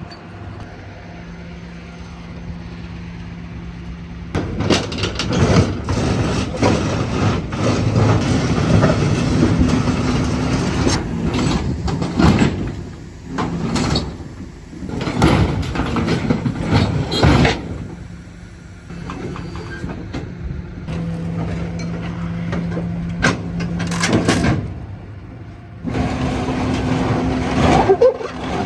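A heavy vehicle's engine running with a steady hum, broken by long stretches of loud scraping and clanking metal as the burnt-out shell of a car is picked up and moved.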